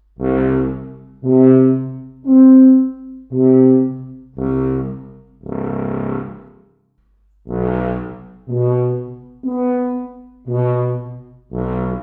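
Wessex Chicago-Presence tuba, a 6/4-size CC tuba with piston valves, played solo. It plays a phrase of about eleven separate, detached notes, each around a second long, with a short break about seven seconds in.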